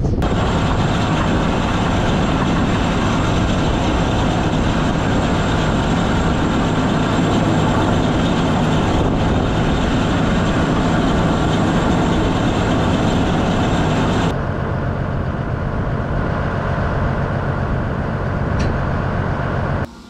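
ATV engine running steadily while it tows a small box manure spreader whose beaters are throwing manure out the back. The noise drops a little about fourteen seconds in and cuts off suddenly at the end.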